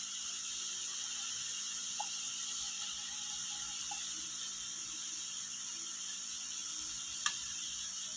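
Steady hiss of onion masala frying in the pan. There is a light tap about two seconds in and one sharp click near the end.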